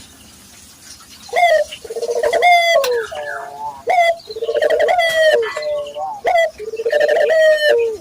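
Local puter dove cooing in repeated phrases after about a second of quiet, each phrase a run of short pulsing notes ending in a longer held note.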